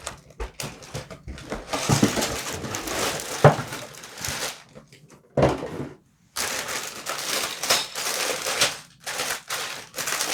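Cardboard LEGO set box being opened and the plastic parts bags inside crinkling and rustling as they are handled, in irregular bursts with a brief pause about six seconds in.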